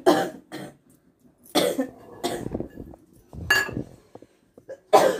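A person coughing several times, short harsh coughs a second or so apart.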